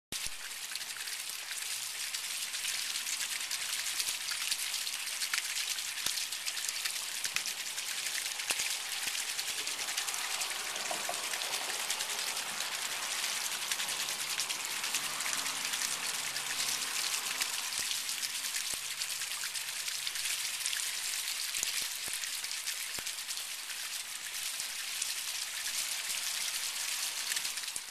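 Water running down a copper rain chain of shallow square pagoda cups, splashing steadily from one cup into the next with a dense patter of drips.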